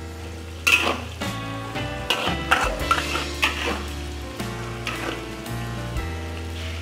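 Flour-coated chicken pieces deep-frying in hot oil in a wok, with sharp clatters of a metal spatula stirring them: once about a second in and several times between two and four seconds in. Faint background music plays underneath.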